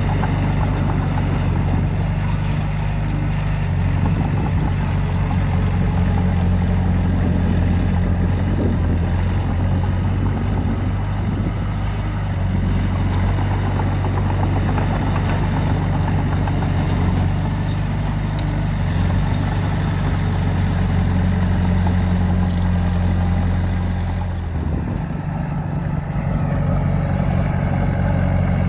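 Diesel engine of earthmoving machinery running steadily. Near the end the engine note briefly drops and then comes back, with a few faint clicks over it.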